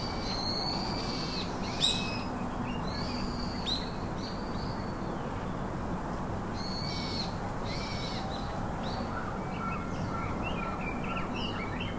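Small birds calling: short, arched, high-pitched chirps in loose series over a steady outdoor hiss, with a sharp click about two seconds in.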